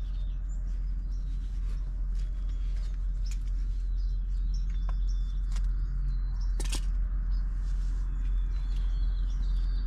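Steady low rumble with birds chirping faintly and a few light clicks, one sharper clink a little over halfway through.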